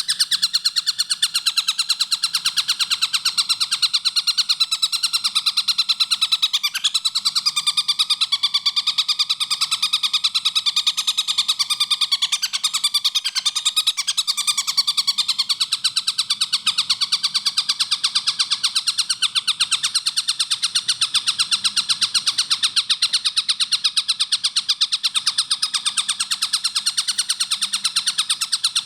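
Tengkek buto (collared kingfisher) calling in a rapid, unbroken run of sharp, closely spaced repeated notes, many per second.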